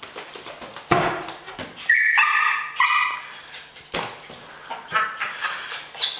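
Dachshund puppy giving high-pitched yips and whines in two short spells, with a couple of sharp thumps.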